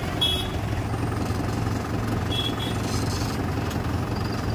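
Mahindra Bhoomiputra tractor's diesel engine running steadily just after being started, with two short high beeps, one near the start and one about halfway through.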